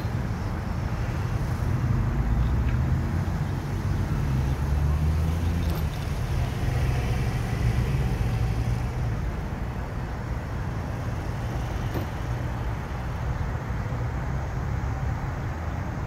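A steady low outdoor rumble that swells and fades slowly, with a couple of faint ticks.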